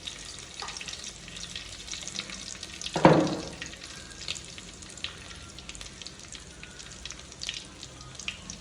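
Fenugreek seeds frying and crackling in hot oil in a pan, with one loud knock about three seconds in.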